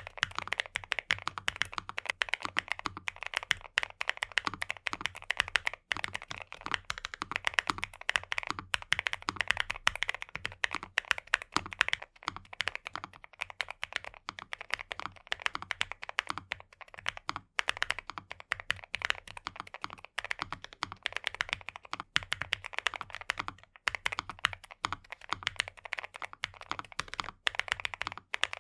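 Continuous fast typing on a NuPhy Nos75 low-profile mechanical keyboard: a dense stream of keystroke clacks, broken by a few short pauses.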